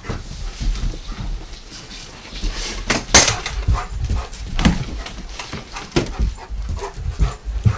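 A dog making soft whimpering and panting sounds, with several sharp clicks and knocks scattered through.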